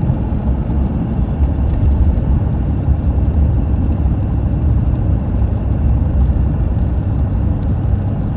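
A car driving steadily along a snow-covered road: a constant low rumble of engine and tyre noise.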